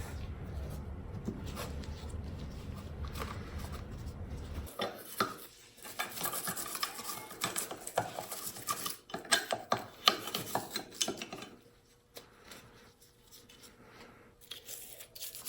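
Metal parts of a Stanley No. 3 hand plane clinking and being rubbed as they are cleaned, in irregular small knocks and scrapes that thin out near the end. A steady low hum underlies the first few seconds and cuts off suddenly.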